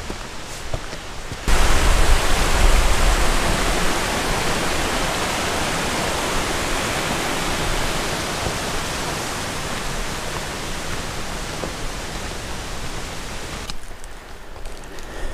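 Steady rushing water of a mountain stream. It starts abruptly about a second and a half in, fades slowly, and cuts off abruptly near the end.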